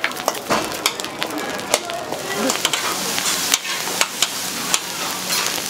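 Fried rice sizzling on a hot steel teppanyaki griddle, with sharp metal clacks at irregular intervals as the chef's steel spatulas strike and chop the rice against the griddle.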